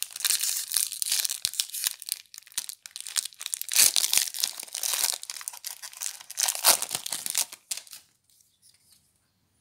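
Foil Magic: The Gathering booster pack wrapper crinkling and tearing open in the hands, a dense run of crackles that stops about eight seconds in.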